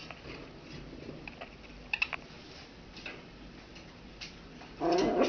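Scattered light clicks and taps, with a couple of sharper clicks about two seconds in, then a puppy gives a short bark near the end.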